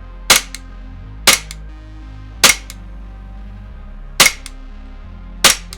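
VFC/Umarex Glock 17 Gen 5 MOS gas blowback airsoft pistol firing five shots at uneven intervals, each sharp crack followed a moment later by a fainter click.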